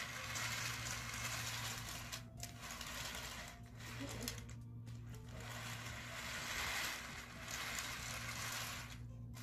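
A string of Thomas & Friends toy engines rolling along a plastic track, pushed by hand, with a steady whirring rumble of wheels on track in three long runs and brief pauses between them.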